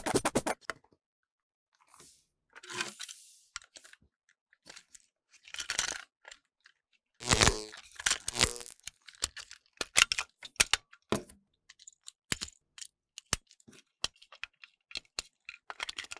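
Hands handling a small plastic Thomas the Tank Engine toy and its packaging: scattered clicks and taps of hard plastic with short bursts of crinkling, the loudest about seven to eight and a half seconds in.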